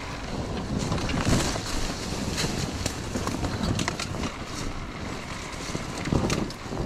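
Irregular knocks, clatter and scraping over a steady rushing noise, with wind buffeting the microphone, typical of an action camera on a dirt bike in rough terrain.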